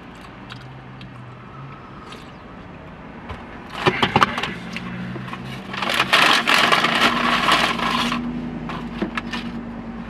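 Food packaging being handled: a few sharp clicks and knocks about four seconds in, then about two seconds of loud crinkling and rustling. A low steady hum runs underneath.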